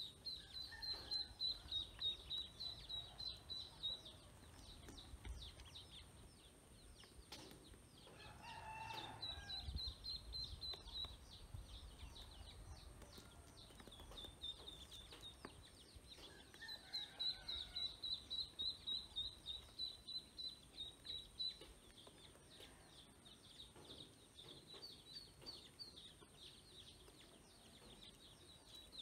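A brood of domestic ducklings peeping, many short high calls in quick runs that come and go, with a brief lower call about eight seconds in.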